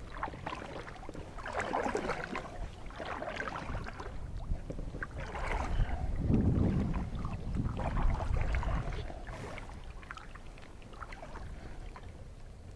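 Double-bladed kayak paddle dipping and pulling through the water, stroke after stroke, each a swell of splashing and dripping off the blades. The strokes ease off and grow fainter near the end.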